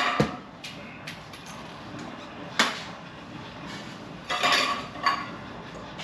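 Metal ceiling-fan housing and hardware clinking and knocking as they are handled and fitted: a sharp click about two and a half seconds in, and a short clatter a little past four seconds.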